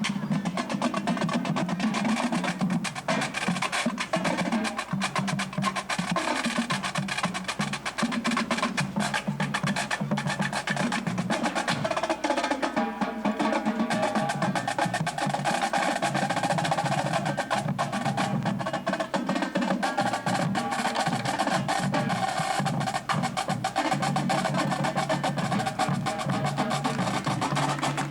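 Drum and bugle corps playing: fast snare drum rolls and other percussion, with sustained horn notes.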